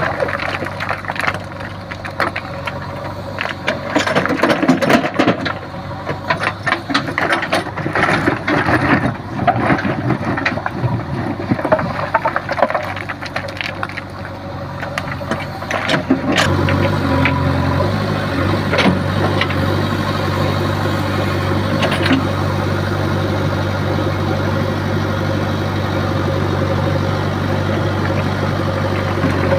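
Diesel engine of a JCB 3DX backhoe loader running, with uneven clattering and rattling over it for the first half. About halfway through the clatter drops away and the engine settles into a steady, louder hum.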